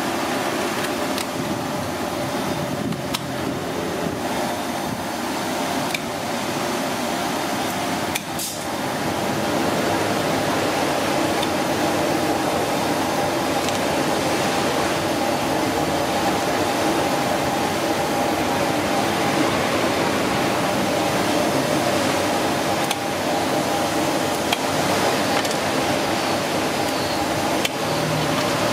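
Steady drone of a ventilation fan that gets a little louder about ten seconds in. A few short snips and clicks of kitchen scissors cutting through a cooked giant isopod's shell sound over it.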